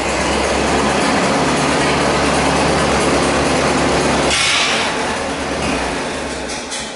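Massey Harris tractor engine running steadily. About four seconds in there is a brief rush of noise, and the engine note drops and fades away.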